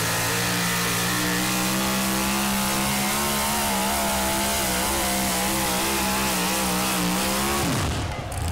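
Pulling pickup truck's engine at full throttle, dragging a weight-transfer sled, its high pitch held with a slight waver. Near the end the pitch falls sharply as the truck stops and the throttle comes off at the end of the pull.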